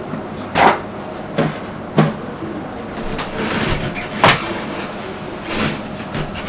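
Handling noise from work on a laptop motherboard: about six short, irregular knocks, clicks and rustles. The sharpest click comes a little past halfway.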